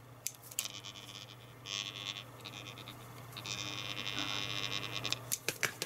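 Electric vacuum desoldering gun's pump switched on in four short bursts, each a hissing buzz that starts and stops abruptly. Its electromagnet is not pulling the plunger in, which the owner takes for the fault.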